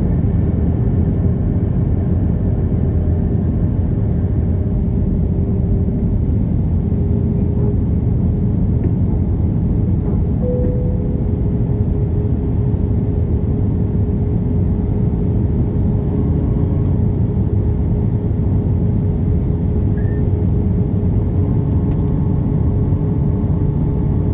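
Airbus A320 cabin noise heard from a window seat over the wing during descent: the steady roar of the jet engines and the rushing air, with a steady hum running through it.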